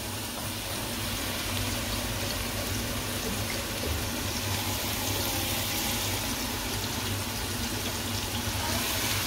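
Chopped onions, garlic and green chillies sizzling steadily in hot oil in a pot.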